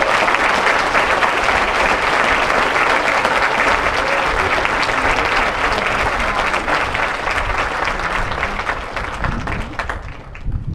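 Crowd applauding after a placing is announced at a band awards ceremony. The applause is dense and steady, then dies away near the end.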